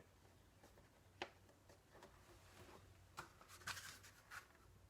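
Near silence: quiet room tone with a few faint, brief clicks and rustles.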